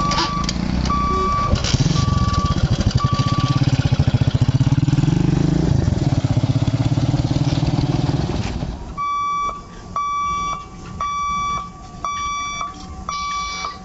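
An electric local train (EMU) rumbles through a railway level crossing with a rapid rhythmic clatter, then fades away about nine seconds in. Throughout, a level-crossing warning beeper sounds short, evenly spaced beeps about every two-thirds of a second. The beeps are half-masked while the train passes and clear once it has gone.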